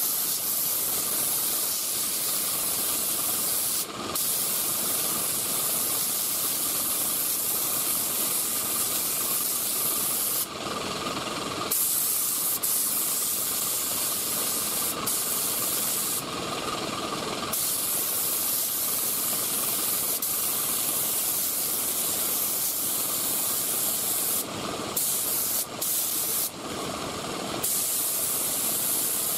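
HVLP spray gun (3M Performance Spray Gun, 1.4 mm tip) hissing steadily as it sprays single-stage urethane paint. The hiss cuts off briefly several times as the trigger is let off between passes: once about four seconds in, twice around the middle, and a few times in quick succession near the end.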